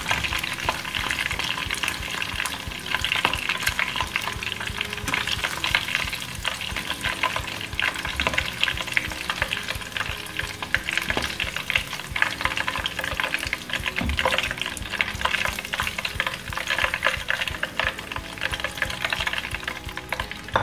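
Chicken pieces deep-frying in hot oil: a dense, steady crackling sizzle, with occasional sharp clicks as metal tongs lift the golden-brown pieces out of the pan.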